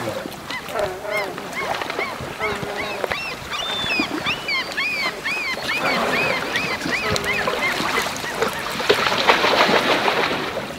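A rapid series of high, arched squealing animal calls, several a second. Then, about nine seconds in, a loud splash as a brown bear lunges through the river shallows.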